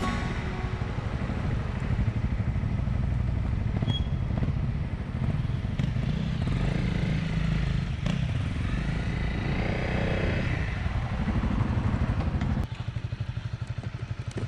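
Off-road motorcycle engine running under changing throttle, its pitch rising and falling. Near the end it drops suddenly to a quieter, evenly pulsing idle.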